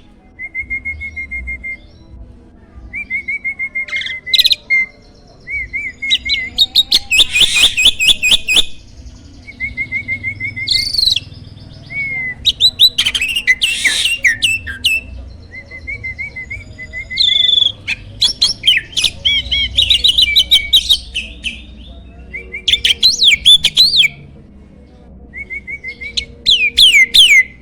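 A jalak (starling) singing: loud bursts of rapid repeated notes and chatter, broken by short pauses.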